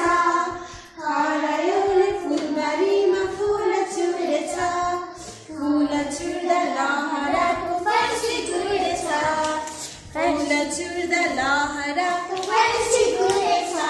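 Young children singing a song together with a woman leading them, with light hand claps now and then.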